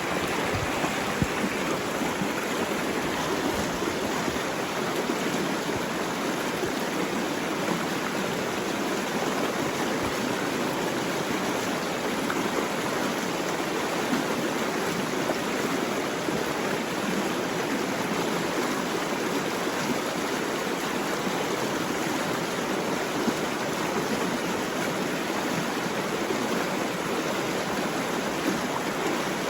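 Flowing water rushing steadily, as of a stream.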